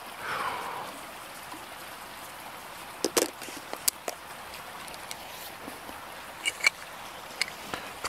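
A DSLR camera with a Tokina macro lens being handled: a brief rustle just after the start, then a few small sharp clicks about three seconds in and again near the end, over a steady outdoor hiss.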